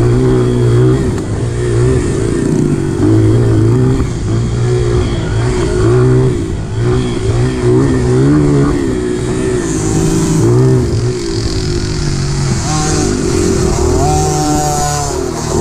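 Small dirt bike engine revving up and down again and again as the throttle is opened and closed over a rough trail. A second, higher engine note comes in during the last few seconds.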